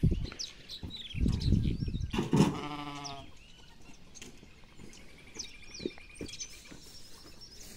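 A sheep bleats once, a wavering call lasting about a second. A low rumble comes just before it.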